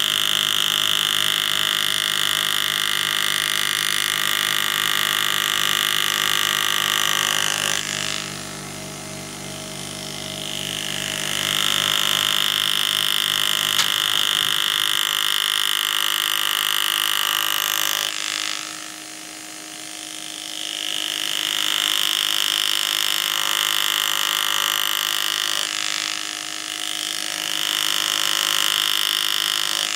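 Air-powered hand-engraving graver buzzing steadily as its tip cuts into a silver coin. The buzz eases off twice for a few seconds and builds back up.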